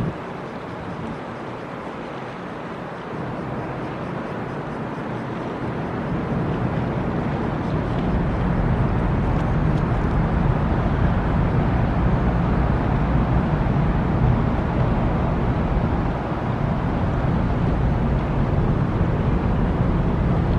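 Diesel engines of the Ro-Ro passenger ferry Ritsurin No.2 running under load as it moves away from the berth: a steady low drone that grows louder about six seconds in, with a low rumble beneath it.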